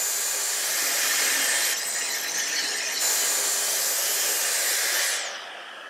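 Plunge-cut track saw with a dust extractor cutting through a panel along a guide rail: a steady, loud hiss and whine that stops about five seconds in and winds down.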